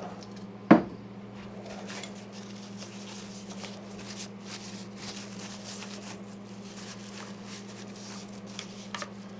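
Paper towel rustling and rubbing as it is worked into a drill chuck's bore with a screwdriver, wiping out packing grease, over a steady low hum. One sharp knock just under a second in.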